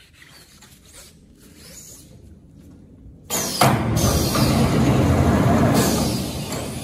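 Faint handling of a cardboard tube, then about three seconds in the XY AI 700 paper-tube core cutting machine starts abruptly. Its shaft spins the tube against the row of circular blades, a loud, steady mechanical running noise that eases slightly near the end.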